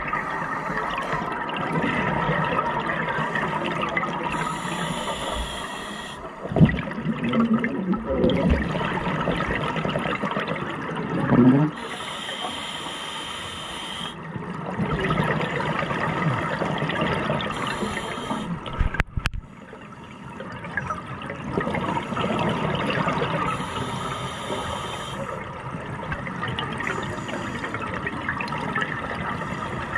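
Scuba diver breathing through a regulator underwater: a hiss on each inhale, about four breaths six seconds apart, and gurgling exhaled bubbles between them, with a few louder bursts. A single sharp click about two thirds of the way through.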